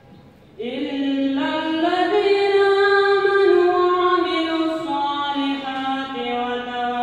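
A boy chanting a Quran recitation in Arabic in a melodic style, holding long notes that glide slowly up and down. There is a short pause for breath at the start, and a new phrase begins under a second in.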